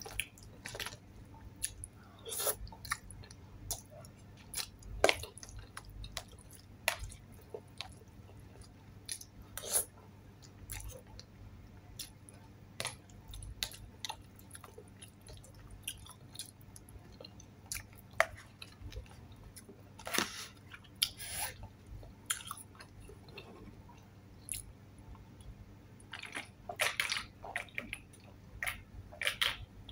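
Close-up eating sounds: wet chewing and mouth smacks of palabok noodles, with a plastic fork clicking in a plastic bowl, in short irregular bursts. Near the end, swallows from a soda can.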